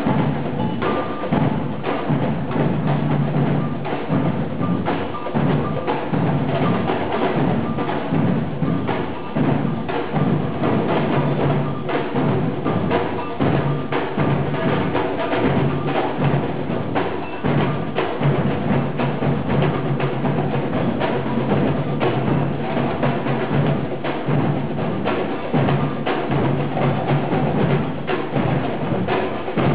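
Percussion music: drums and sharp knocking hits played in a busy, unbroken rhythm.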